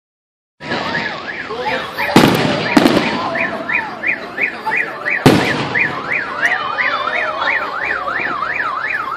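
Car alarm siren going off, set off by the fireworks: a rapid rising-and-falling wail about three times a second that starts about half a second in. Fireworks bang loudly over it about two seconds in, twice just before three seconds, and once more past five seconds.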